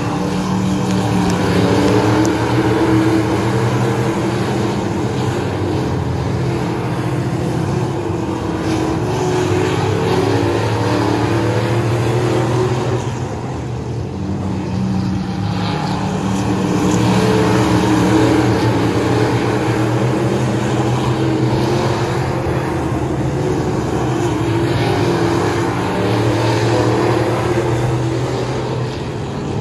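A pack of late model stock cars racing around a paved oval, their V8 engines running hard. The sound swells as the field comes past, about 2 and 18 seconds in, and fades as they go down the far side.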